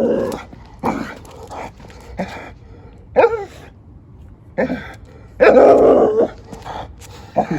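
A dog barking and whining in a string of short outbursts, with one longer, louder outburst about five and a half seconds in.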